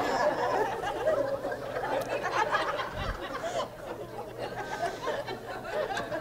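Congregation chuckling and murmuring in a large hall, tailing off over the seconds.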